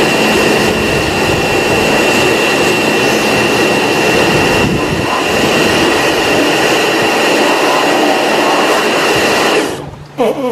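Pressure washer running, its jet spraying against a car's underside: a steady hiss of spray under a constant high whine. It cuts out briefly near the end.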